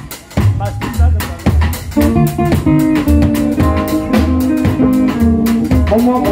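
Live highlife band playing an Akan sikyi groove: electric guitar over drum kit, bass and keyboard. The first two seconds are mostly drums and pulsing bass, and held chords and guitar notes fill in about two seconds in.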